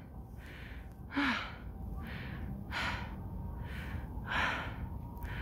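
A person breathing hard and out of breath from climbing a mountain trail: heavy breaths in and out about every second and a half, one of them a short voiced exhale about a second in.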